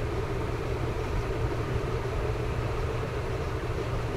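Steady low machine hum and rumble with a faint steady tone above it, unchanging throughout.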